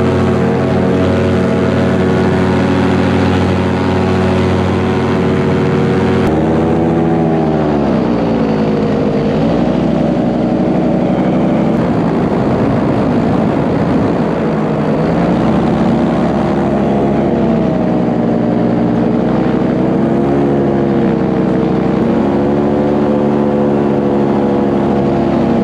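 Paramotor engine and propeller running hard through the take-off run and climb. About six seconds in the note changes abruptly, then its pitch dips and rises several times as the throttle is eased and opened.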